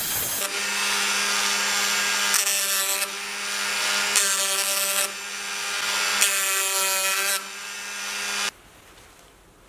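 Handheld electric rotary tool (Dremel-type) running with a steady whine while its bit cuts grooves into wood. The cutting rasp grows loud three times as the bit is pressed in, then the tool stops abruptly near the end.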